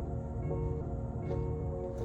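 Background hip-hop beat: a looping melody over a steady bass line.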